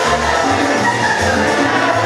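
Latin dance music playing loud over a dance hall's sound system, with a steady, repeating bass line.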